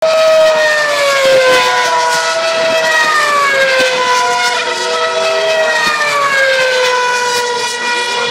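Formula 1 cars going past one after another at high revs, a high-pitched engine note for each that falls in pitch as it passes. There are about four passes, roughly two seconds apart, and the notes of several cars overlap.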